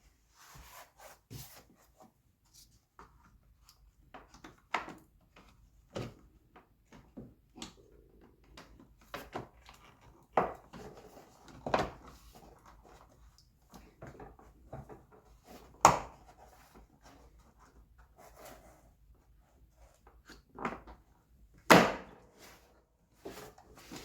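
Hand work on car parts: irregular clicks, light knocks and rubbing as pieces are handled and fitted, with a few sharper knocks, the two loudest in the second half.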